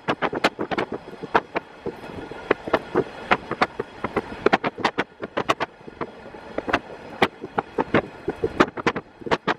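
JR East KiHa 48 diesel railcar running along the track: steady running noise, with sharp, irregular clicks and clatter from the wheels several times a second.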